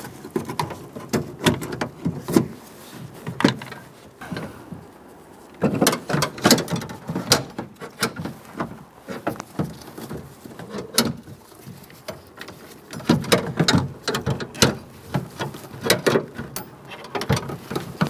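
Irregular plastic clicks, knocks and rattles in uneven bursts with short pauses, from a front door lock actuator being lifted, twisted and worked free of the window glass guide hook inside a car door.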